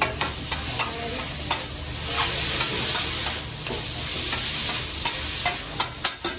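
Noodles and rice sizzling on a teppanyaki flat-top griddle as metal spatulas scrape and stir them, with sharp clacks of the spatulas striking the steel, several in quick succession near the end.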